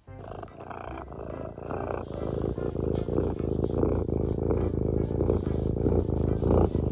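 Domestic cat purring loudly right up against the microphone, a rough, rapidly pulsing rumble that grows louder over the first couple of seconds.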